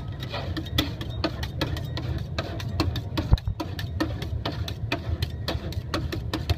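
Rolled-ice-cream vendor's metal spatulas chopping on the steel cold plate: rapid, fairly even metallic taps, about three to four a second, as the ingredients are chopped into the cream, over a steady low hum.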